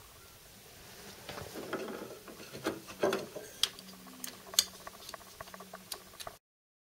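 Hard plastic parts being handled: a Honeywell BDR91 relay's casing and a plastic face plate rubbing and clicking against each other and a back box, with irregular scrapes and small clicks and a sharper click about four and a half seconds in. The sound cuts off abruptly shortly before the end.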